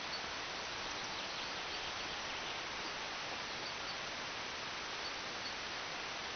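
Steady outdoor background hiss, with a few faint, short high chirps scattered through it.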